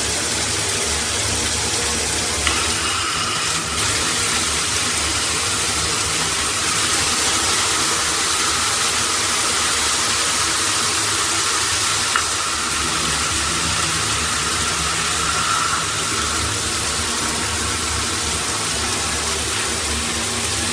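Shower head spraying water in a steady, loud stream, with a couple of faint clicks.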